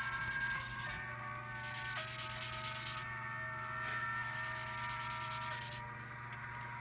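Coloured pencil shading on drawing paper: rapid back-and-forth scratching strokes in spells that pause about a second in, around three seconds and near six seconds. Soft background music with sustained notes plays underneath.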